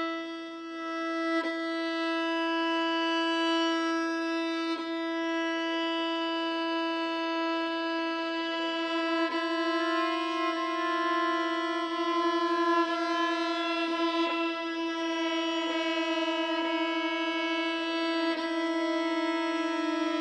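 Background music: one long note held at a steady pitch on a bowed string instrument.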